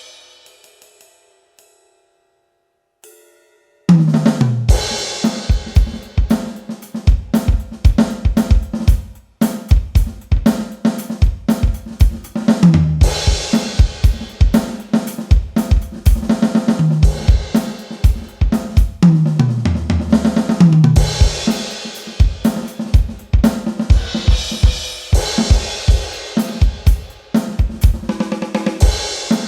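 Medeli DD638DX electronic drum kit heard through its sound module, playing a beat of kick, snare, hi-hat and cymbals with several tom fills that step down in pitch. The playing starts about four seconds in, after a near-silent pause.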